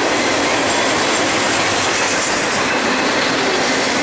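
Double-stack container train's freight cars rolling past: a loud, steady rush of steel wheels on rail that does not let up.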